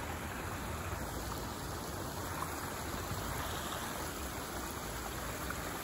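Water running steadily through a beaver dam, an even rushing sound.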